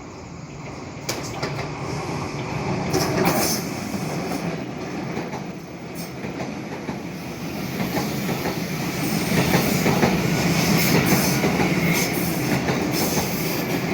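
A train running on the rails, its wheels clacking over the rail joints, growing steadily louder as it comes closer.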